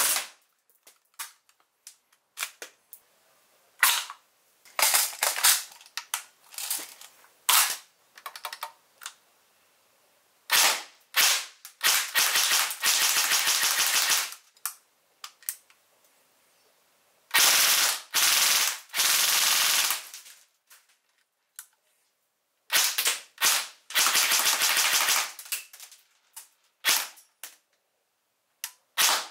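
Battery-powered airsoft guns firing: single shots and short strings, mixed with several full-auto bursts lasting one to three seconds, with quiet gaps between them.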